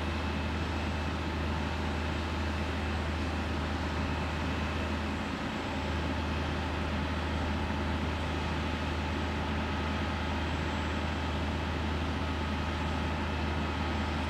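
A large engine running steadily: a constant low drone that dips briefly about five seconds in.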